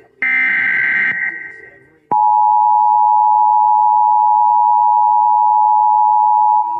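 Emergency Alert System tones: a burst of SAME digital header data lasting about a second, then about a second later the two-tone EAS attention signal, a steady high tone held for about four and a half seconds before it cuts off abruptly. They herald a flash flood warning.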